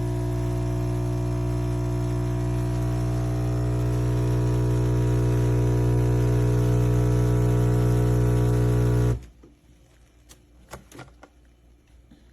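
Philips 3300 Series espresso machine's pump running with a steady buzzing hum while it makes a drink, getting a little louder partway through, then cutting off suddenly about nine seconds in. A few faint clicks and taps follow.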